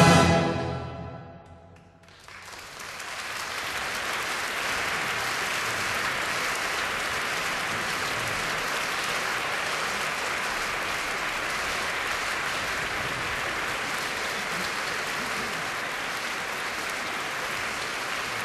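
The closing chord of the orchestral music dies away, then audience applause starts about two seconds in and carries on steadily.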